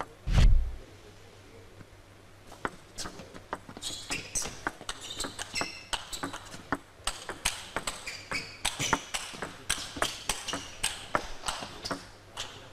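Table tennis rally: the ball clicking off the rackets and the table in quick succession, the hits coming thick and fast from about two and a half seconds in, with short high squeaks among them. A single heavy low thump about half a second in.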